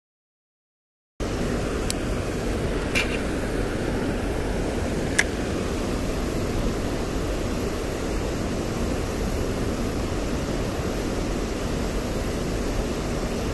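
Silence for about a second, then a steady rush of water running through the dam, with a few light clicks in the first few seconds.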